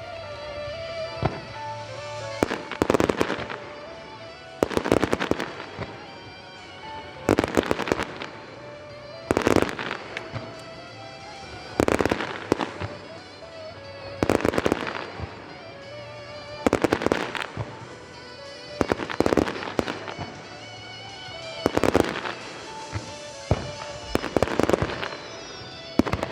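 Large aerial firework shells bursting, a loud bang with a crackling tail about every two and a half seconds, with music playing underneath.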